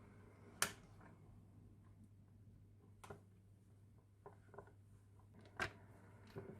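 Three sharp taps, evenly about two and a half seconds apart, over a faint steady low hum.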